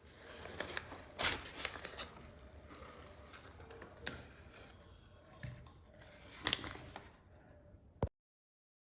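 Light clicks, scrapes and small knocks of tools and engine parts being handled during engine assembly, with two sharper clacks about a second in and near the end. The sound cuts off suddenly about eight seconds in.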